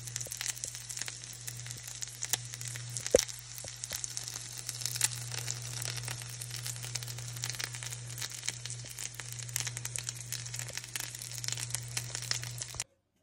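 Egg-filled potato rings frying in oil in a nonstick pan: a steady crackle and sizzle of many small pops, with a steady low hum underneath. A sharper pop comes about three seconds in, and the sound cuts off abruptly near the end.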